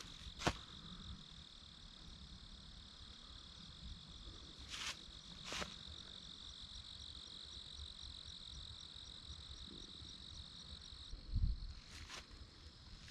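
Crickets trilling in a steady high chorus that stops shortly before the end, with a few scattered footsteps crunching in dry leaves and a dull low bump near the end.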